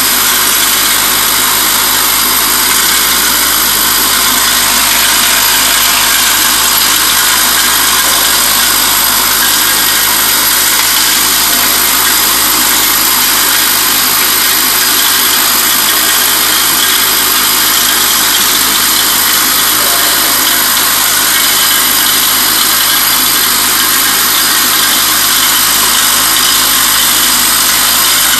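Sortimac vibratory bowl feeder running, its bowl of small flat stamped metal parts rattling steadily as they are shaken up the spiral track. The sound is a loud, even, mostly high-pitched metallic rattle that does not change.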